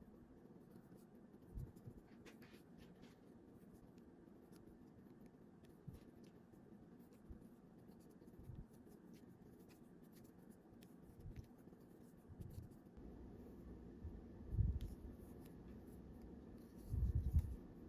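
Faint rustling and scratching of cotton yarn drawn through loops by a crochet hook as single crochet stitches are worked, with a few small ticks and a couple of soft low thumps near the end.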